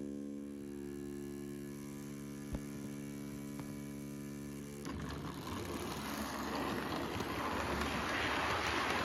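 Steady electrical hum from the model layout with a single sharp click partway through, then, about five seconds in, a model train pulls away: the electric motor and metal wheels rumble on the track, growing louder as the class 47 model diesel draws its coaches past.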